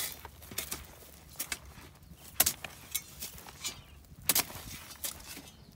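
A steel shovel blade striking and scraping into dry, stony soil in a series of short, irregular strokes, about one a second, as furrows are re-marked by hand for sowing.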